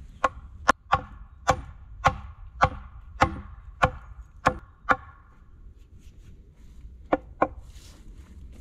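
Hatchet blows on a wooden crossbar and upright pole, each a sharp knock with a short ring: about ten strikes at roughly two a second, a pause, then two quick strikes near the end.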